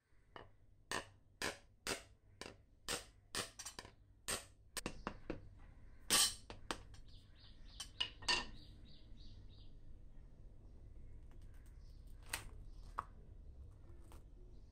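Hard shell of a wood apple (bel fruit) being knocked with a utensil handle to crack it open. It starts as a steady run of sharp knocks, about two a second, then a few heavier, irregular knocks as the shell breaks, and two more knocks near the end.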